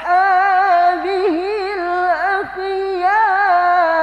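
A young male qari's high voice chanting through a microphone in Quranic recitation style, drawing out the closing word "wa ashabihi" of a salawat in one long held note. The note is ornamented with quick wavering turns in the middle and settles into a steadier tone near the end.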